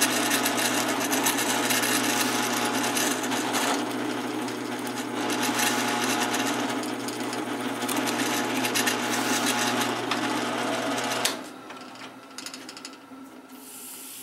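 Drill press motor running steadily while a quarter-inch bit bores a centre hole through quarter-inch oak. The sound drops off sharply about eleven seconds in, leaving a few faint clicks.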